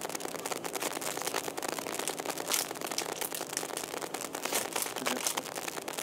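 Dense small clicks and crackling of hands pressing a RAM stick down into a motherboard slot, with the anti-static bag under the board crinkling.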